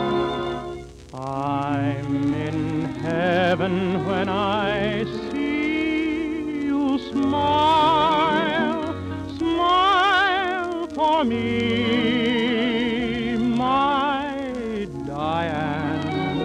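Studio orchestra playing a song accompaniment, its melody line carried in heavy vibrato over sustained lower parts.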